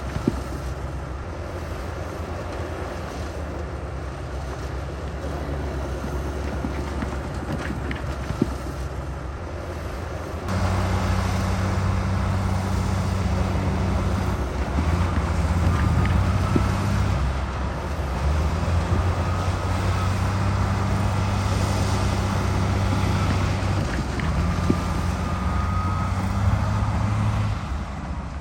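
Heavy diesel earthmoving machinery running: a steady engine drone that suddenly gets louder about ten seconds in and stays up, with a faint thin whine coming and going in the latter half.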